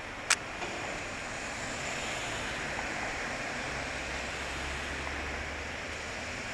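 Street traffic: a steady hiss of tyres and engines from passing cars, with a deeper rumble from about four to five and a half seconds in as a vehicle goes by. A single sharp click about a third of a second in.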